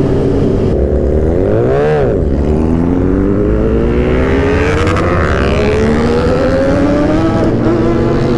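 Sport motorcycle engine revved once, pitch rising and falling quickly about two seconds in, then accelerating with its pitch climbing steadily for several seconds.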